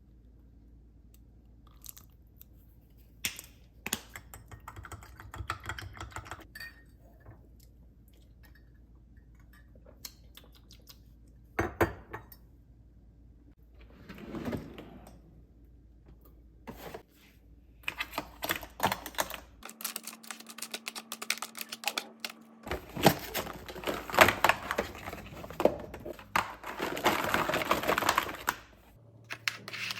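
Quick, light clicks and taps, scattered at first, then a dense run of rapid clicking through most of the second half, like typing on a keyboard.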